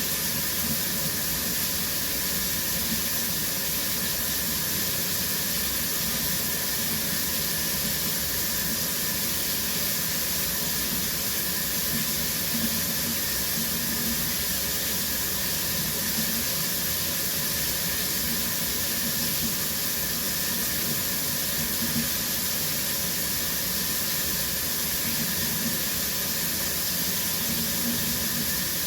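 Shower running steadily, water spraying from the showerhead as an even, unchanging hiss.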